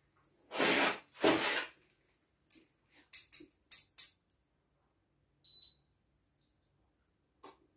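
A metal utensil scraping and clicking against a porcelain plate as carrot pieces are picked up: several short sharp scrapes in quick succession, then a brief high squeak and a last click near the end. Two loud rushing noises come first.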